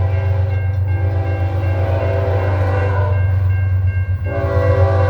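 Norfolk Southern diesel locomotive's air horn sounding a held multi-note chord in long blasts, a fresh blast starting a little after 4 s, over the steady low rumble of the locomotive's engine as the loaded coal train approaches.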